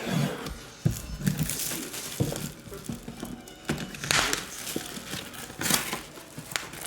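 Packaging being handled and unwrapped: irregular crinkling and tearing, with light knocks and clicks from boxes being moved.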